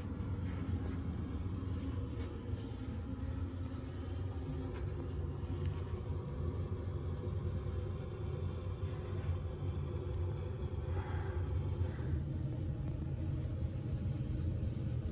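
Steady low drone of the ferry Excellent's engines and onboard machinery, a continuous rumble with several steady low hums.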